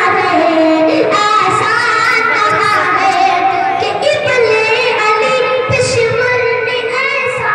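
A boy's solo voice singing a naat through a microphone and loudspeakers, with long drawn-out, wavering notes that glide from one pitch to the next.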